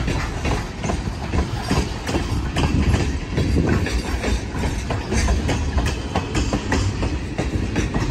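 Freight train of tank cars rolling past: steel wheels clicking over the rail joints above a steady low rumble.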